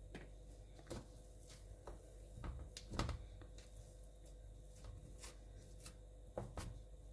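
Hands pressing and patting soft cake dough into a round metal baking pan: faint rubbing with scattered soft taps, the loudest about three seconds in.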